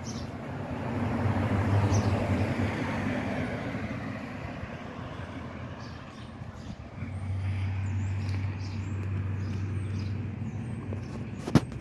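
Street traffic: a passing vehicle swells and fades a second or two in, then a steady low engine hum from about seven seconds, with a single sharp click near the end.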